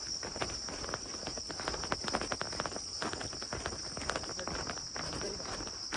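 A steady, high-pitched drone of insects, with irregular footsteps and scuffs on a trail.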